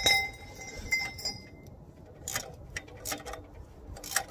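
Hand tools clinking on a rusty exhaust bolt: one sharp metallic clink that rings for about a second and a half, then several scattered light clicks as the tool is worked.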